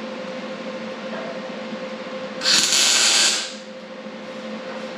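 A welder laying one short tack weld on a steel roll-cage tube: a harsh hiss starting a little after two seconds in and lasting about a second. A steady low hum runs underneath.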